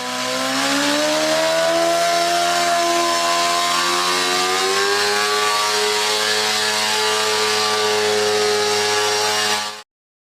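Motorcycle engine running, rising in pitch over the first couple of seconds, then holding a steady note and cutting off suddenly near the end.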